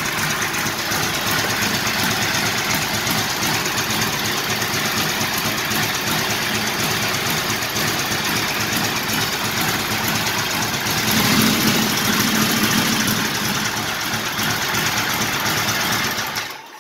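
1940 Harley-Davidson UH's 80-cubic-inch flathead V-twin running at idle on its first run after restoration, picking up a little for a couple of seconds about eleven seconds in. The owner finds it running rich and suspects the Bendix carburetor's float height is set too high.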